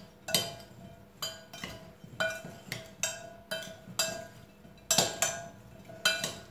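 Spoon clinking against a glass mixing bowl while tossing potato wedges, about two strikes a second, each with a short ring.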